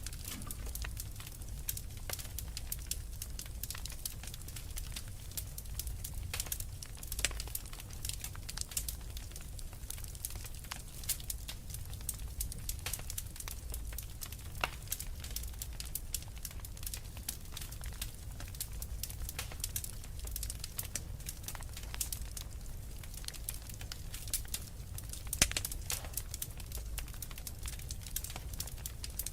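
Wood fire crackling steadily: dense irregular snaps and pops over a low rumble of flames, with a louder pop about 25 seconds in.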